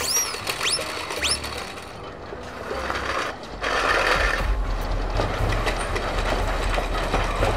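Three short whistling swoops in the first second and a half. From about three and a half seconds on comes a louder, steady mechanical rattle and rumble: an animated roller-coaster train running along its track.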